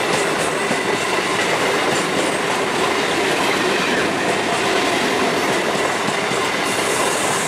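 Indian Railways passenger train passing close by, its wheels clattering over the rails in a loud, steady rush.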